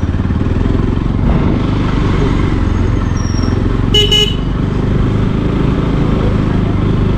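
Motorcycle engine running steadily as it is ridden at low speed, heard from the rider's seat. About four seconds in, a vehicle horn gives a short double toot.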